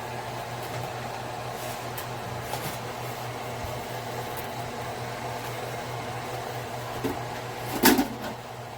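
Steady hum of an electric ceramic hob's cooling fan running under the burners. A sharp clatter comes near the end.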